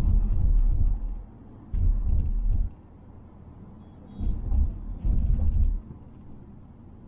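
Cabin noise of a 2020 Mazda Atenza driving, a steady low road hum broken four times by heavy low rumbles lasting about a second each, with a few faint clicks.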